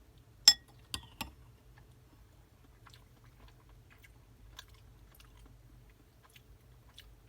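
Eating sounds: a sharp, loud click with a short ring about half a second in, two lighter clicks just after, then faint scattered ticks of chewing.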